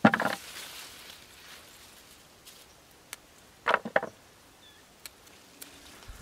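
Green beans being picked by hand: bean plants rustling, with short snaps and clatters as pods are pulled off and dropped into a plastic bucket. There is a sharp one at the very start and a quick pair a little under four seconds in.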